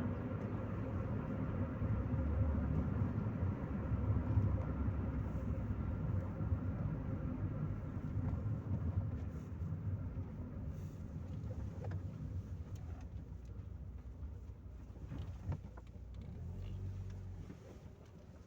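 Chevrolet Corsa Maxx heard from inside the cabin on the move: a steady low engine and road rumble that slowly dies down over the last several seconds. A few light clicks and knocks sound about two-thirds of the way through.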